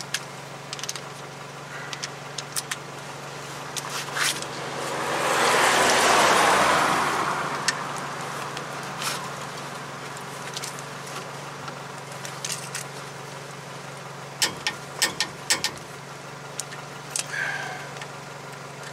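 Metal clinks and clicks of a socket, extension and long torque wrench being fitted onto a truck's front brake caliper bolt, over a steady low hum. A louder rushing noise swells and fades about six seconds in, and a quick run of clicks comes near the end.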